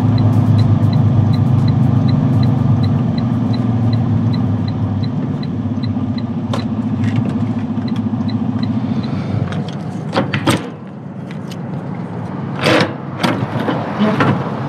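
Semi-truck diesel engine running steadily while driving, with an even ticking about three times a second. About nine seconds in it gives way to several sharp metal clanks and rattles of a trailer's rear door lock bar handle being unlatched.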